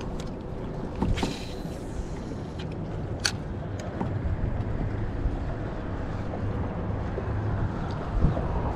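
Low rumble of wind on the microphone and water along the hull of a moving fishing kayak, with a few sharp clicks and knocks, the sharpest about three seconds in.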